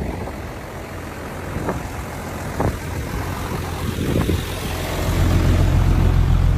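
Motor vehicle engine running with a steady low rumble, which grows louder about five seconds in. A few short knocks come in the first four seconds or so.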